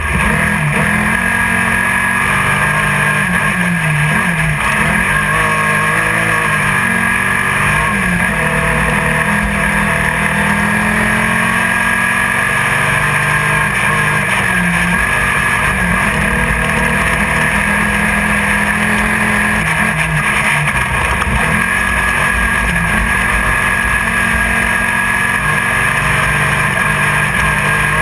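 Air-cooled 1600 cc VW flat-four of a Class 1600 off-road race buggy running hard at racing speed, heard from inside the car. The engine's pitch wavers up and down with the throttle over a steady wash of wind and chassis noise.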